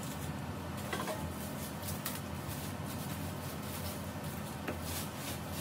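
Metal clothing-rack tubes and frame parts being handled in their box, with plastic wrap crinkling: a few short clicks and crackles over a steady low hum.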